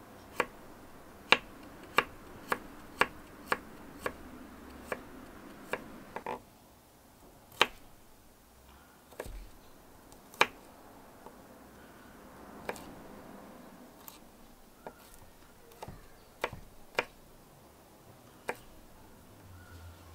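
A knife chopping garlic cloves on a wooden cutting board: sharp knocks of the blade hitting the wood, about two a second for the first few seconds, then sparser and irregular.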